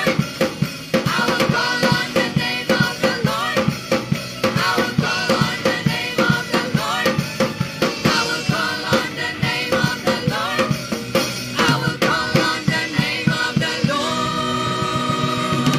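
Live worship band music with the drum kit to the fore, kick and snare keeping a steady driving beat. Near the end the band settles into a sustained held chord.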